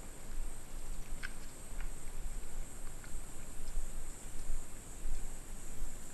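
Mountain bike riding down a dirt trail: uneven wind rumble on the microphone with scattered clicks and rattles from the bike and trail. A steady high chirring of crickets runs behind it.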